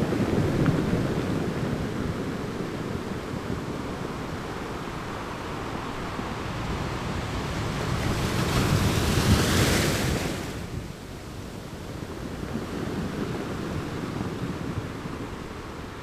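Sea water washing and lapping, with wind on the microphone. A louder rush of water builds from about eight seconds in and cuts off suddenly about two and a half seconds later.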